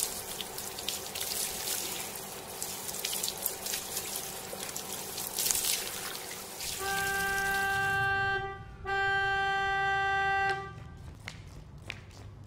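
Water spraying from a garden hose onto potted plants and wet paving. About seven seconds in, a car horn sounds two long, steady honks, the second starting about half a second after the first ends.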